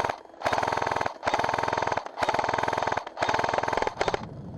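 G&P M249 airsoft electric support gun firing in bursts: one burst ends just at the start, then four rapid-fire bursts of under a second each follow with short pauses between them.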